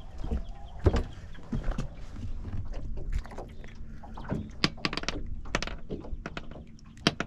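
Many irregular sharp knocks and clicks of handling aboard a small fishing boat, over a low rumble.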